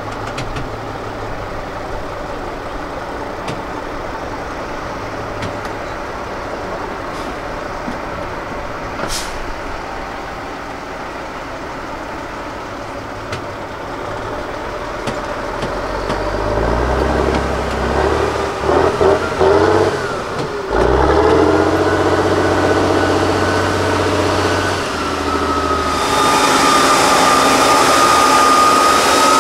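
Tatra 813 8x8 trial truck's diesel engine running at a moderate steady pace, then working harder and louder from about halfway as the truck crawls over a dirt mound. A steady high whine rises over the engine in the last few seconds.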